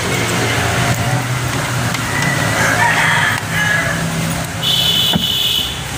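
Pitched animal calls, one about two to three seconds in and a higher one about five seconds in, over a steady low hum.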